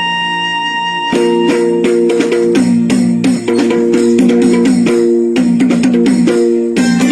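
Instrumental music: a single held note, then from about a second in a repeating plucked-string melody with a quick, even pulse.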